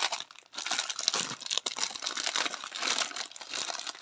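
Plastic packaging crinkling as it is handled and folded, with a steady crackling rustle and a brief lull about half a second in.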